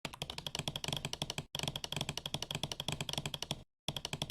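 Rapid typing on keys, about ten keystrokes a second, with a very brief break about a second and a half in and a short pause near the end.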